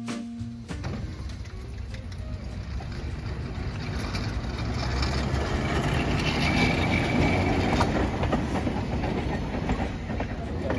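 Pittsburgh Railways streetcar No. 3756 rolling past on steel rails, the rumble of its wheels growing louder as it comes close, with a brief faint high squeal about six to seven seconds in.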